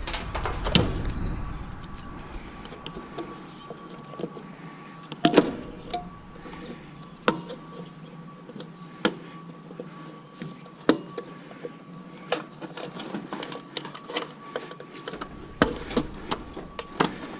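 Irregular clicks, taps and knocks of tools and metal parts as a stove's control panel is dismantled for scrap, the loudest knock about five seconds in. A few faint high chirps come in the middle.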